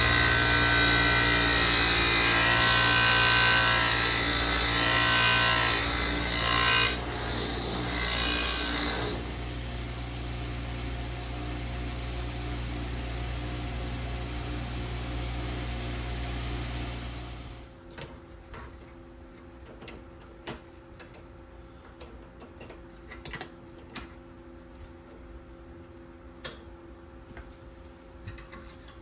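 A power tool runs loud and rough, with a shifting whine, for about the first nine seconds as it works against a part. It then runs steadier and quieter, and stops about two-thirds of the way through, leaving scattered light clicks and taps.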